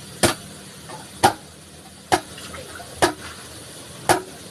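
Digging at the muddy bottom of a deep dug well: five sharp strokes about a second apart.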